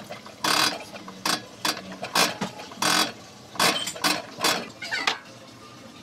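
Diesel injector nozzle from a Komatsu 3D84 engine popping on a hand-lever nozzle tester: about nine short, sharp hissing spurts of fuel spray, one per pump of the lever, irregularly spaced.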